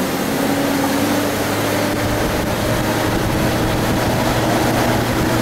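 Off-road 4x4 vehicle's engine running steadily as it drives along a dirt trail, a low hum under a continuous hiss of road and motion noise.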